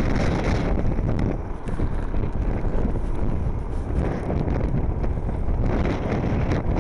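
Wind buffeting the microphone aboard a moving Blokart land yacht: a loud, steady low rumble that swells and dips, with a few faint brief rattles.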